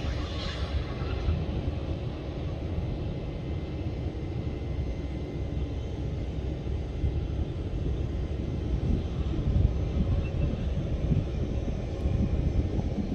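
Airbus A320neo's twin turbofan engines rumbling steadily as the jet rolls down the runway during a rejected-takeoff run.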